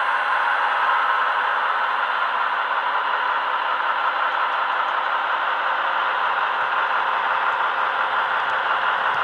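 Model diesel engine sound from a Loksound 5 micro sound decoder in a Heljan OO-gauge Class 15 locomotive, played through its small speaker as the model runs slowly. A steady, even engine note with little deep bass.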